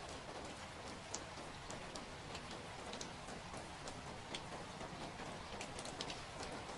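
Steady rain falling, a constant hiss with individual drops ticking at irregular intervals.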